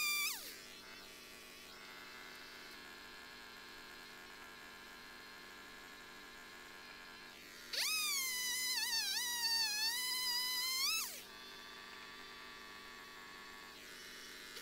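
Ryobi 16-inch chainsaw: a high whine that falls away just after the start. About eight seconds in it spins up again and cuts into a log for about three and a half seconds, its pitch sagging and wavering under load, then winds down. It spins up once more right at the end.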